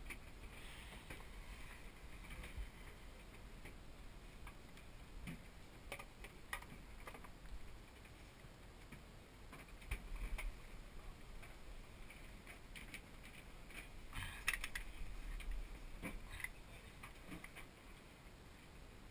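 Faint clicks and rustles of diving gear being handled and rummaged through in a bag, with a short cluster of louder clicks about fourteen seconds in.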